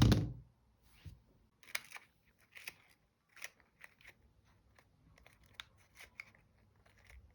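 Sheets of paper being handled, with short crisp paper sounds coming irregularly, one or two a second. A loud thump opens it and dies away within half a second.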